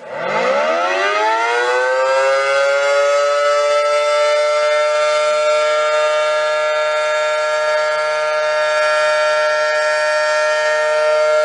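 Civil defense–style siren winding up from a low pitch over about two seconds, then holding a steady, chord-like tone of several pitches.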